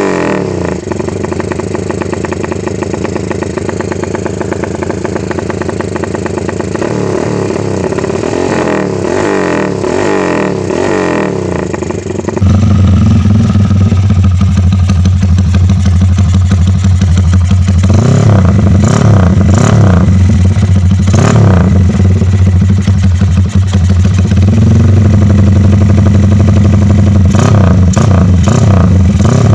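Motorcycle engines blaring through BSS aftermarket exhausts, tuned for the choppy 'helikopter' note: first one bike revved in repeated blips, then, about twelve seconds in, a louder one running with a deep steady exhaust note and revved up in swells.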